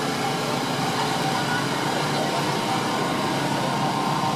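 Steady drone of a small engine, such as the generators that light the carozzas, mixed with the murmur of a walking crowd.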